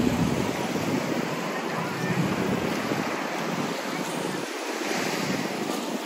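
Small surf washing up on a sandy shore, with wind buffeting the microphone.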